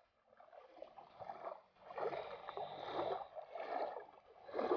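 Shallow river water swishing and sloshing around a wader's legs, in repeated soft swells as he steps through it.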